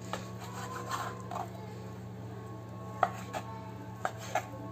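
Kitchen knife cutting cooked spleen into cubes on a wooden cutting board: a series of short knocks as the blade meets the board, irregular at first and coming faster in the second half.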